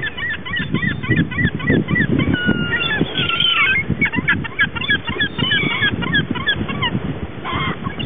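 A flock of seagulls calling: many short, harsh calls overlap and repeat rapidly, with a low rough noise underneath.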